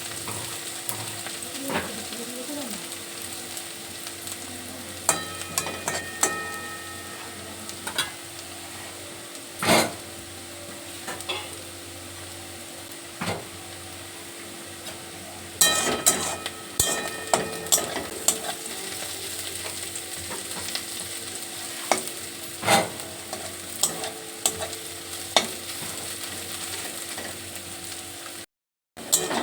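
Sliced onions frying in hot oil, sizzling steadily as they brown to a reddish-brown. A spatula stirs them and scrapes and knocks against the pan every few seconds. The sound cuts out briefly near the end.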